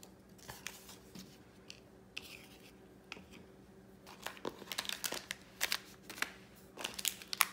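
Plastic-sleeved washi tape packages crinkling and tapping as they are handled and set down on a tabletop: a few light clicks at first, then a busier run of crinkles and taps from about four seconds in.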